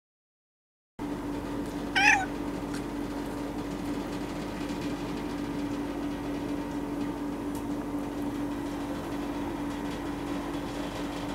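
Domestic cat meowing once, a short loud call about two seconds in, over a steady low hum.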